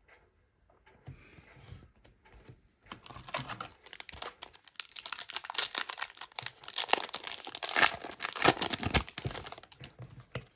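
Foil wrapper of a Topps Chrome trading card pack being torn open and crinkled: a dense crackling rustle that builds about three seconds in and is loudest in the second half.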